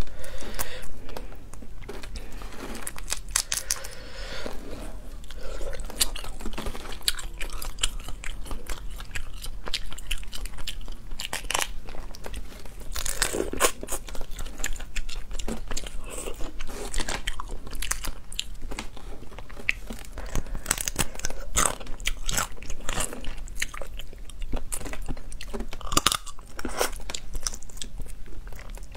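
Close-up eating sounds of cooked small lobsters: shells cracking and being pulled apart by hand, with biting and wet chewing of the meat, in many irregular short cracks and clicks.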